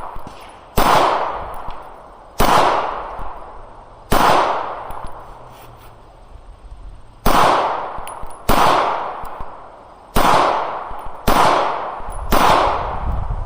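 Eight slow, aimed shots from a SIG Sauer P320 pistol firing 115-grain Blazer 9mm ammunition. They come about one to two seconds apart, with a longer pause of about three seconds in the middle, and each shot rings out with an echoing tail.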